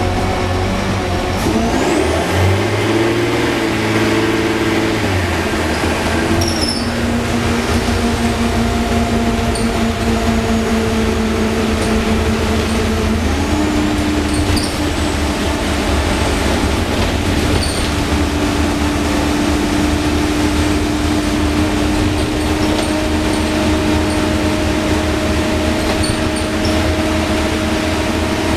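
Optare Solo M950 bus's Cummins ISBe diesel engine and Allison 2100 automatic gearbox heard from inside the passenger saloon while driving. It is a steady drone with an engine tone that changes pitch in the first few seconds, steps down about five seconds in, then steps up about thirteen seconds in and holds.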